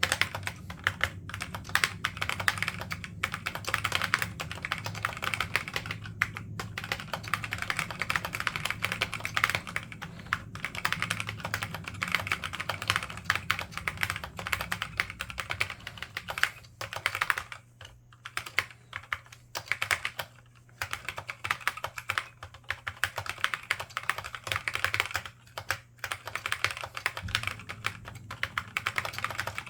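Continuous fast typing on a laptop keyboard with Alps SKFM switches and ABS doubleshot keycaps: a dense run of key clicks, broken by a few brief pauses in the second half.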